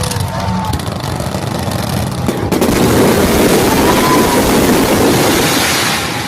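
Aerial fireworks going off: a sharp bang a little over two seconds in, then several seconds of dense crackling from crackle-effect shells, with crowd voices underneath.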